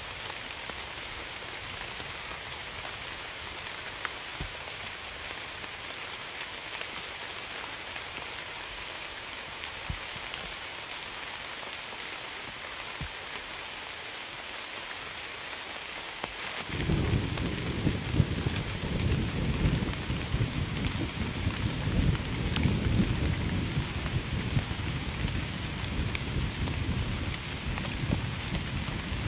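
Steady rain falling and pattering on a surface. A little over halfway through, a low rumble sets in suddenly and keeps going, louder than the rain.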